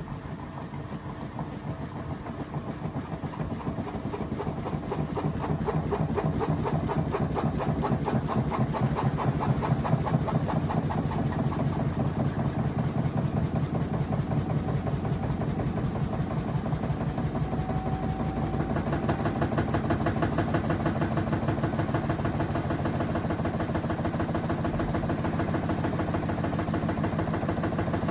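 Samsung EcoBubble washing machine spinning with an unbalanced load, its drum knocking fast and regularly. The knocking grows louder over the first several seconds, then holds steady.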